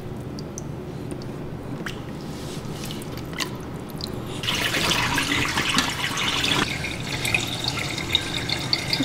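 Water dripping and splashing as a wet cat is bathed in a plastic tub. About halfway through it turns louder and denser: wet rubbing of hands working shampoo lather into the cat's fur.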